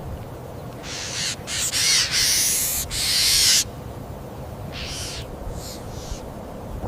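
An animal's harsh, noisy hissing calls: a long string of them starting about a second in, then two short ones near the end.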